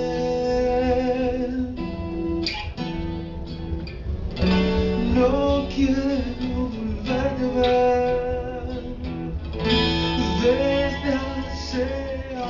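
Live band playing an instrumental passage between sung verses: a strummed acoustic guitar with electric guitar and drums, as a continuous song.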